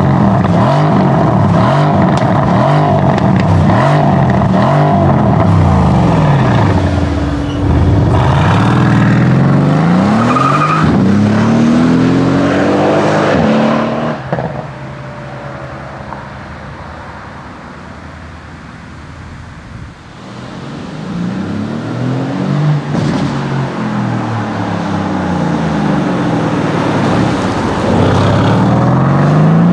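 Mercedes-AMG C63 S Estate's 4.0-litre twin-turbo V8 accelerating hard, its note climbing and dropping again and again. About halfway through it falls away to a much quieter stretch for several seconds, then builds up again as the car accelerates once more.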